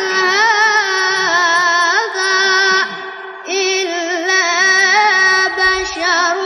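A young boy's high voice reciting the Quran in melodic tajweed style: long held notes with wavering ornaments, a short breath pause about three seconds in, then the recitation resumes.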